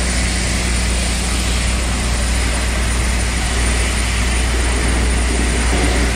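Steady drone of shipyard machinery: a loud, even low hum with a broad hiss over it and a faint high whine.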